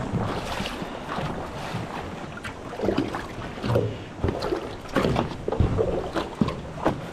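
Handling noise from a fabric backpack being lifted and shifted, rustling, with irregular knocks and bumps of hands and gear against the side of a boat. The knocks come thicker and louder in the second half.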